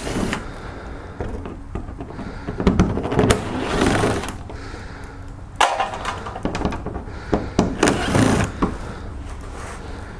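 Cordless drill-driver with an 8 mm socket spinning bolts out of a car's plastic engine splash shield in a few short runs, with clicks and knocks of tool and parts being handled in between.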